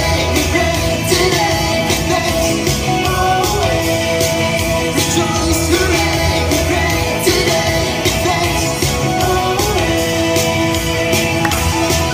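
A song with a sung vocal over a steady beat, playing loudly without a break.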